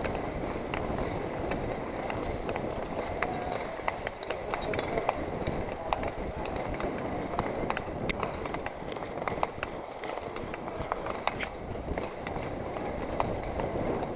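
Long-track speed skates striding on ice: irregular sharp clicks and scrapes of the blades over a steady rush of air on the microphone of a camera moving at skating speed.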